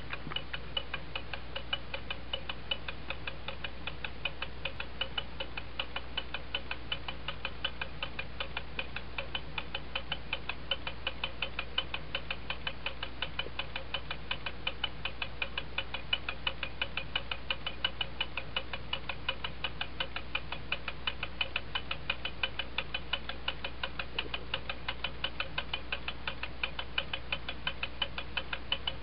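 Vintage German puppy-shaped novelty wall clock, weight-driven, ticking fast and evenly as its movement runs.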